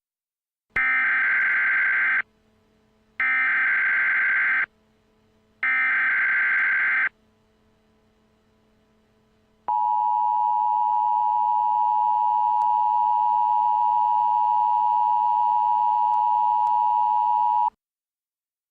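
Emergency Alert System tones: three SAME header data bursts of about a second and a half each, a second apart, then the two-tone EAS attention signal held steady for about eight seconds before cutting off. The sequence marks the start of a new emergency alert.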